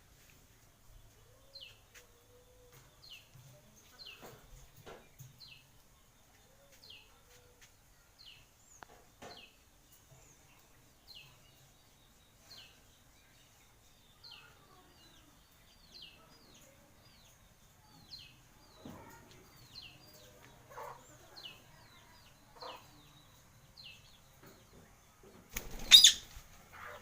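Pet parrot chirping: short, falling chirps repeated every second or so. Near the end comes one loud, sudden burst lasting about a second.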